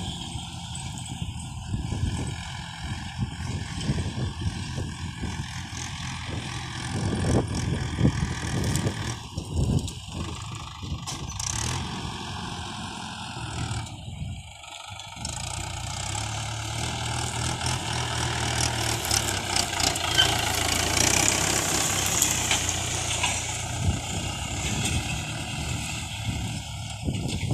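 Farm tractor diesel engine running under load as it pulls a tillage implement across dry ground. The sound drops briefly about halfway, then carries on steadier and a little louder.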